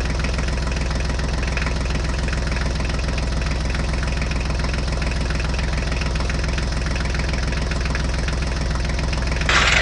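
Tractor engine idling steadily, an even low chugging hum. A brief louder, noisier sound joins it near the end.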